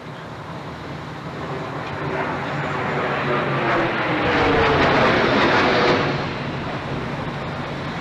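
American Airlines Flight 11, a Boeing 767 jet airliner, flying low overhead. Its engine noise grows louder to a peak about five seconds in, and its pitch falls as it passes.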